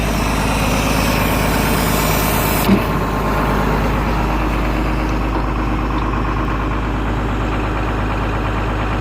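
Engine idling steadily, with a single sharp knock nearly three seconds in, at the moment a high hiss cuts off.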